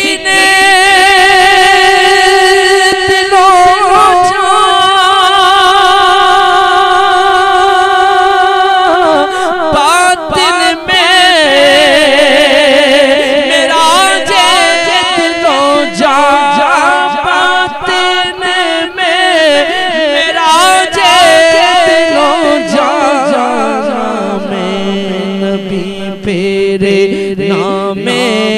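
A man singing a naat into a microphone: he holds one long, wavering note for about nine seconds, then sings ornamented runs that slide up and down in pitch. A steady low drone sounds underneath and drops lower near the end.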